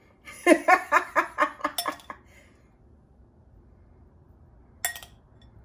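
A woman's voice for about two seconds, pulsing quickly without words, then a single sharp clink of a metal spoon against a glass baking dish near the end.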